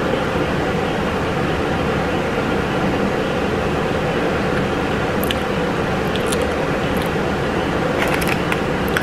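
A steady mechanical hum and hiss in a small room, with a few faint clicks in the second half.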